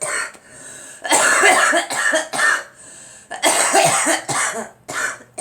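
A girl coughing in fits: a run of harsh, rapid coughs about a second in, another run a little after halfway, and a single short cough near the end.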